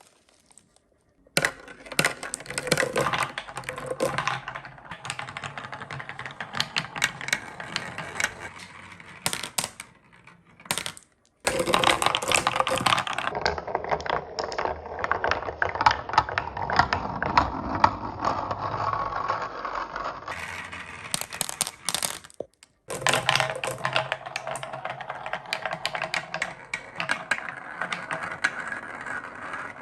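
Many marbles rolling and clattering down a wooden marble run: a dense stream of rapid clicks and rattles that starts about a second in and breaks off briefly twice.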